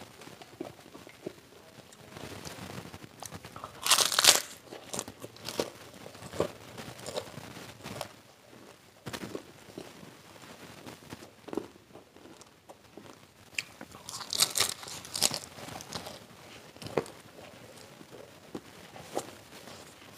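Close-miked chewing and crunching of crispy deep-fried snacks, with loud crunchy bites about four seconds in and again around fourteen to fifteen seconds in, and softer chewing clicks in between.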